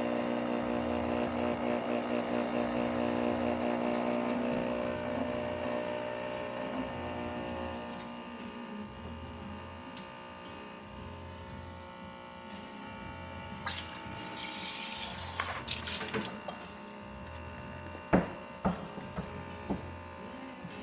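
Rocket espresso machine's vibratory pump buzzing steadily as a test shot is pulled, louder for the first few seconds and then settling quieter. A short hiss comes about three-quarters of the way through, and a few sharp clicks near the end.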